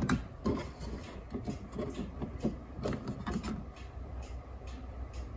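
Plastic handling sounds from a Keurig Mini brewer: a sharp click at the start, then a run of small plastic clicks and scrapes over about three seconds as the used K-Cup pod is worked out of its holder, thinning to faint ticks.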